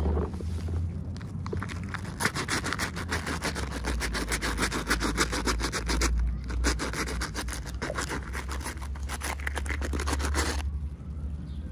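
Rapid scratching and scraping of packaging being handled and opened, in two long stretches with a short break about six seconds in, over a steady low hum.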